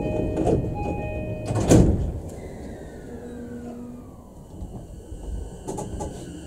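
Door-closing chime of a JR E233-5000 series train sounding in short repeated tones, then the sliding doors shutting with a thud a little under two seconds in. After that a fainter whine falls in pitch over the train's low hum as it stands ready to depart.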